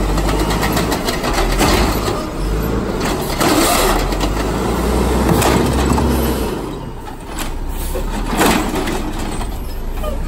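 Mack automated side-loader garbage truck running its engine up to drive the hydraulic arm as it lifts, dumps and sets down a plastic cart, with knocks and clatter from the cart and arm. The engine drops back after about six and a half seconds, and a sharp hiss or bang comes about eight seconds in.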